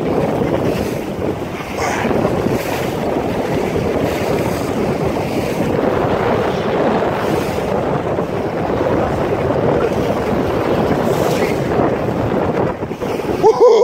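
Strong wind buffeting the microphone, with water rushing and splashing along the hull of a Starwind 19 sailboat sailing hard in high wind. A short pitched sound near the end is the loudest moment.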